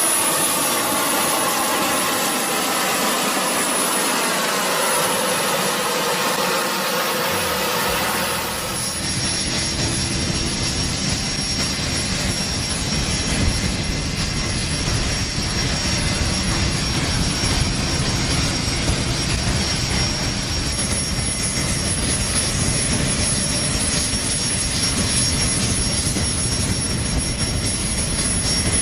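Loud jet engine noise. For about the first nine seconds it is a whine that wavers in pitch; then it changes abruptly to a steady, deeper roar.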